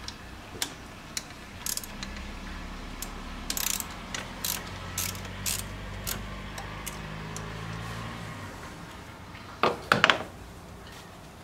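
A hand socket ratchet clicking in short, irregular runs as it turns a fastener in a car's engine bay. About ten seconds in come a few louder metallic knocks.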